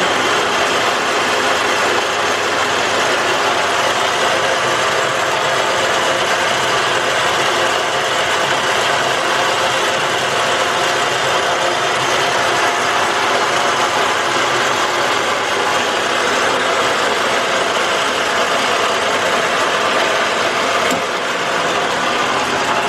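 A power machine tool in a machine shop running steadily and loudly, with an even grinding or cutting noise, while a small steel part is being worked.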